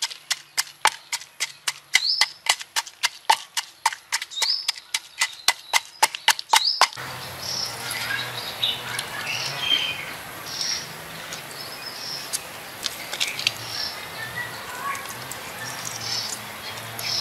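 Wooden pestle pounding chilies and salt in a wooden mortar: a steady run of hollow knocks, about three to four a second, that stops abruptly about seven seconds in. After that, outdoor ambience of steady hiss with birds chirping.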